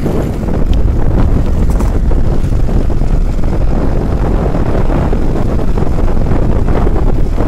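Loud, steady wind buffeting the microphone of a phone carried on a bicycle riding fast downhill.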